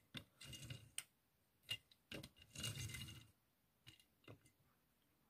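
Die-cast Johnny Lightning Acura Integra Type R toy car pushed back and forth by hand on a tabletop: faint rolling of its small wheels in two short runs, with light clicks and taps between them.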